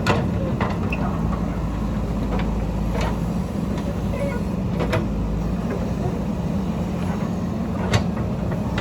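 Diesel engine of a heavy earthmoving machine running steadily under work, with a few sharp metallic clanks of the digging gear, the loudest near the end.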